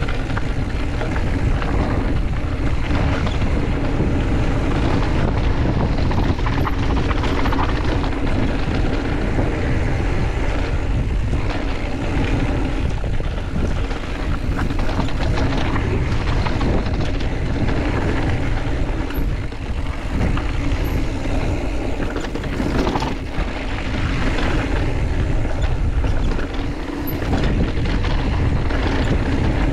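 Mountain bike riding down a trail: wind rumbling on the camera microphone and tyres rolling over dirt and stones, with frequent knocks and rattles from the bike over bumps.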